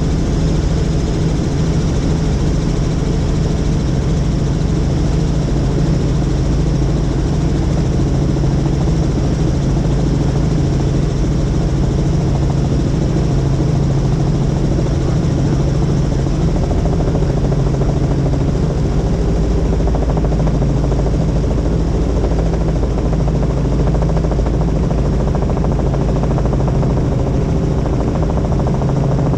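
Helicopter in flight: loud, steady rotor and engine noise with a strong low drone that holds even throughout.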